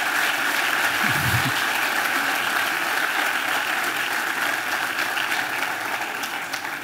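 Audience applauding steadily, the clapping fading gradually toward the end.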